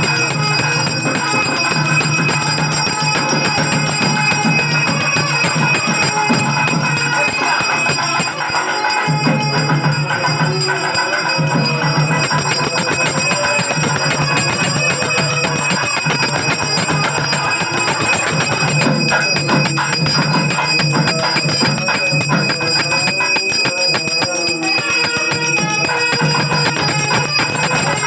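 Devotional music with bells ringing steadily throughout, a dense ringing that holds without a break.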